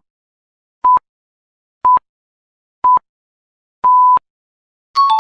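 Quiz countdown timer beeping: short, high electronic beeps once a second, five in all, the last held a little longer. A falling two-note electronic chime follows near the end as the countdown runs out.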